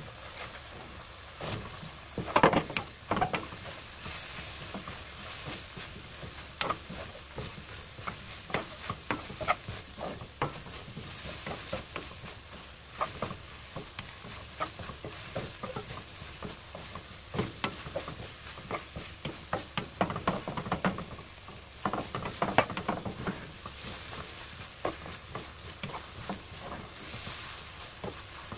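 Wooden spatula scraping and knocking against a nonstick wok, stirring garlic scapes through a thick chili-paste sauce, over a steady sizzle. The scrapes come irregularly, with busier bursts of stirring about two seconds in and again near the end.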